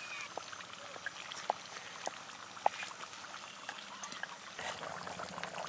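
Luchi frying in hot oil in an iron pan over a wood fire: a steady bubbling sizzle, with a few sharp clicks over it.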